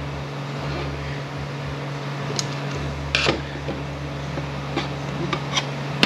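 Steady mechanical hum with scattered clicks and scrapes of hand tools prying at the cracked plastic linkage bushing and seal on a 62TE transmission's shift linkage. The loudest is a short scrape about three seconds in, and a sharp click comes at the end.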